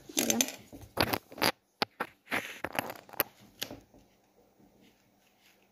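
A quick run of sharp clicks, snaps and rustles as markers and paper are handled on a table, dying down after about four seconds.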